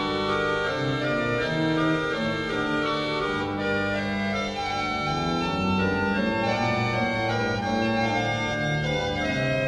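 Organ music playing slow, sustained chords that change every second or so.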